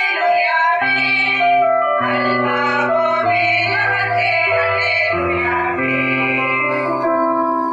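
A group of women singing a song together, with low held notes of accompaniment under their voices.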